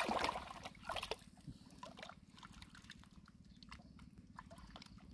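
Wet handling noises in mud and water: a scatter of small sharp clicks and squelches, with louder ones at the start and about a second in.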